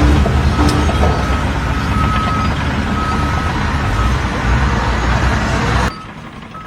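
A heavy vehicle's engine rumbling, with a short electronic beep repeating about once a second. The rumble cuts off abruptly near the end.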